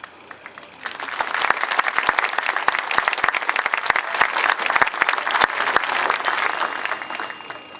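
A crowd in stadium bleachers applauding. The clapping starts about a second in, stays loud through the middle and dies away near the end.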